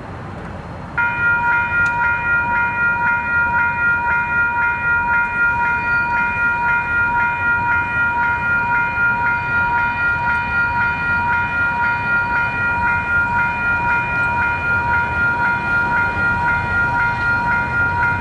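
Level crossing warning bell starts abruptly about a second in and rings steadily at a quick, even rate, set off by an approaching train, over a low rumble.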